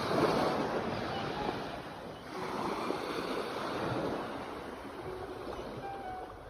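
Sea waves breaking on a shore. One wave crashes right at the start and washes out, and a second swells about two and a half seconds in, then fades.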